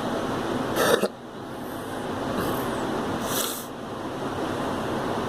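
A girl coughing: one short, loud cough about a second in, then a weaker, breathier burst about three and a half seconds in, over steady background noise.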